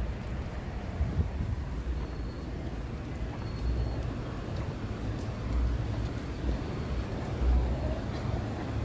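City street traffic noise: a steady low rumble of passing vehicles that swells and eases.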